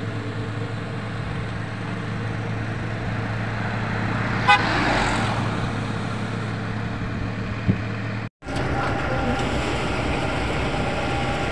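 A truck's engine running steadily, with a short horn toot about four and a half seconds in. The sound drops out for a moment just after eight seconds, then the engine hum carries on.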